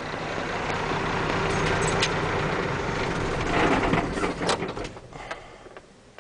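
Grain truck engine idling in neutral. A little before four seconds in there is a louder rush with a few clicks. The engine then shuts off and the sound dies away to near quiet.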